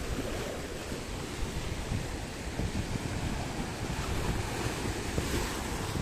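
Sea surf washing onto the shore, with wind buffeting the microphone in uneven gusts.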